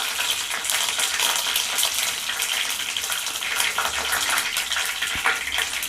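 Curry leaves sizzling and crackling in hot coconut oil in a pan, a steady hiss dense with small pops, with a brief low knock about five seconds in.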